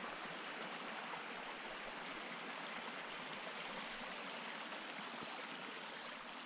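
Water running in a stream: a steady, even rush.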